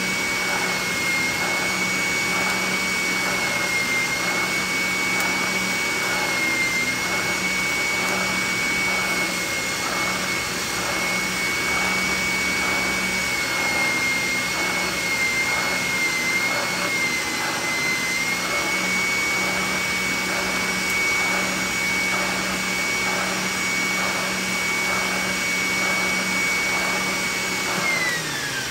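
Oscillating spindle sander with dust extraction running: a steady high whine over a low, evenly pulsing rhythm, while a steel knife blank is held against the spinning sanding drum. Near the end the machine is switched off and the whine falls steeply in pitch as it spins down.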